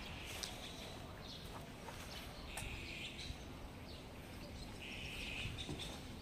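Street ambience: a steady low background noise with scattered light ticks and two short high-pitched sounds, each about half a second long, at about two and a half and five seconds in.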